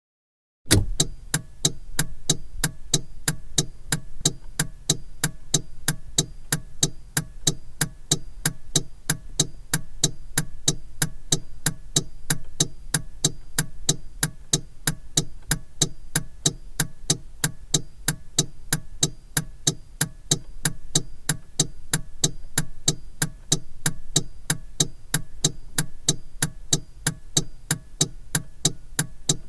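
Car turn-signal indicator clicking in a steady rhythm, about three clicks a second, starting just under a second in, over a low steady hum.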